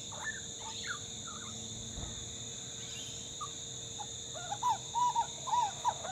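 Grey butcherbird fledgling calling: a few soft chirps in the first second and a half, then a quick run of about five short notes that each rise and fall in pitch, near the end.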